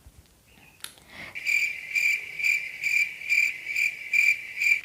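Cricket-like chirping: a steady high trill that pulses about twice a second and cuts off abruptly at the end.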